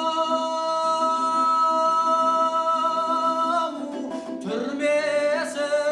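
Kazakh folk song: a singer holds one long note for about three and a half seconds, then sings a wavering, ornamented phrase, over plucked-string accompaniment.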